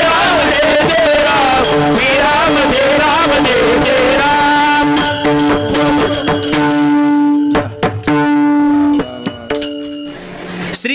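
Kirtan music. A man sings over a steady held note and hand-cymbal strikes. After about four seconds the singing stops, leaving the held note and scattered cymbal and drum strikes, which grow sparse near the end.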